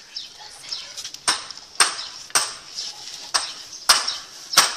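Metal spoon clinking against the side of a metal cooking pot as thick boli (cow colostrum pudding) is stirred: sharp metallic clinks about twice a second, starting about a second in.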